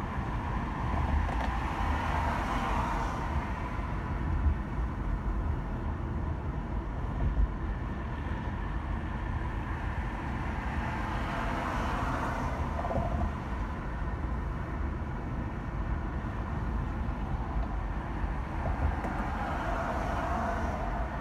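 Car driving on a city road: a steady low rumble of engine and tyre noise, with a hiss of noise that swells and fades three times.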